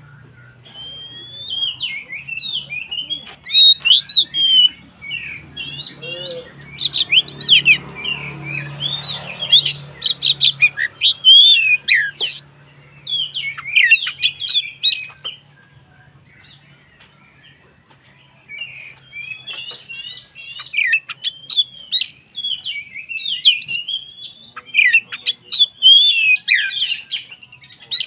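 Oriental magpie-robin (kacer) in full song: rapid, varied runs of whistles and sharp chattering notes, pausing for a few seconds about halfway through before starting again. A faint low hum runs underneath the first half.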